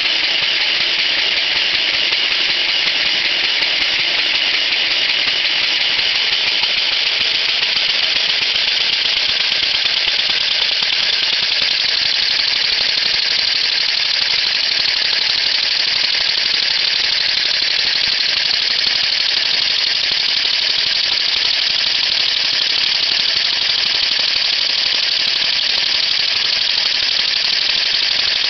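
Acrylic vacuum air engine running steadily on suction through a vacuum-cleaner hose: a loud, even rush and whine of air being drawn through it, mixed with the fast mechanical rattle of the engine spinning its flywheel and generator.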